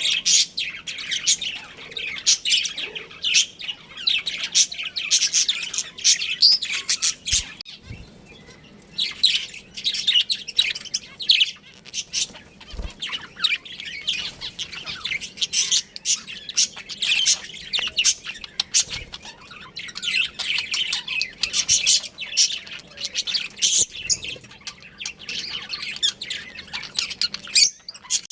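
A group of budgerigars chirping continuously, many quick high chirps overlapping, with a brief lull about eight seconds in.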